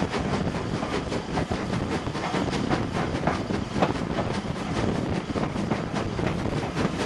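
Steam locomotive running at speed, heard from beside the cab: continuous running noise with a quick, regular beat throughout.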